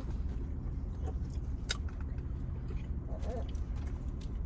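Close-miked chewing and wet mouth clicks of someone eating, over a steady low hum. A brief murmured voice comes about three seconds in.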